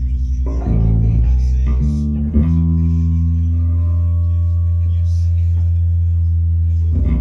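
Bass guitar played loud through Sunn Model T and Orange OR80 amp heads into an Orange OBC810 8x10 and a Sunn 4x12 cabinet. A few low notes change in quick succession over the first two and a half seconds, then one low note is held for about four and a half seconds, and a new note starts just before the end.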